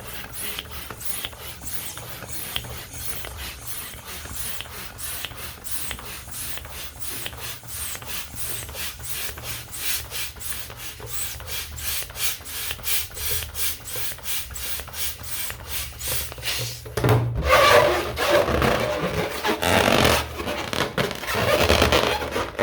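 Balloon being inflated with a hand pump: a steady run of short rasping pump strokes, about three a second. Near the end a louder, fuller rushing sound takes over.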